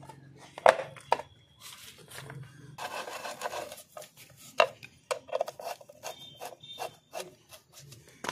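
Motorcycle front sprocket cover being pressed onto the engine casing and its bolts driven in by hand tool: a few sharp knocks, a rubbing scrape about three seconds in, then a quick run of metallic clicks.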